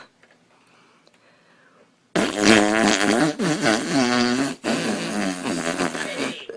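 A long, loud fart with a wavering pitch, starting about two seconds in after near silence and running for about four seconds with a couple of brief breaks.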